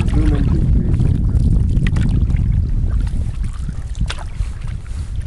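Wind buffeting a camera microphone in a canoe on open water, a constant low rumble, with a couple of short sharp knocks or splashes about two and four seconds in.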